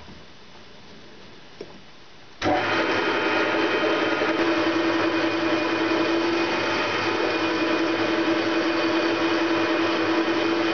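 Metal lathe starting up suddenly about two and a half seconds in, then running steadily with a strong whine while its insert tool cuts a recess into a chuck backplate.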